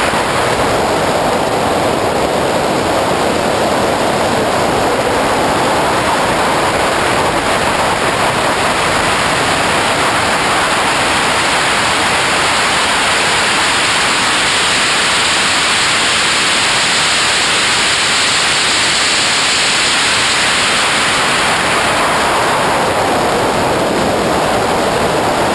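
Loud, steady wind rush buffeting the microphone of a camera mounted on the front hood of a Porsche 911SC race car at track speed.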